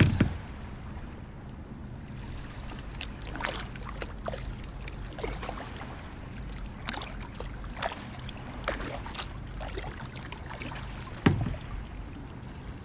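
Kayak paddle strokes: the blade dips and drips in the river water every second or so, over a low steady rumble. There is one louder thump about eleven seconds in.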